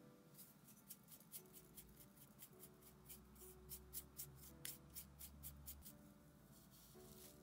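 Pastry brush sweeping grated lemon zest off a ceramic grater dish: a quick run of soft, scratchy brush strokes, about four a second, that stops about a second before the end.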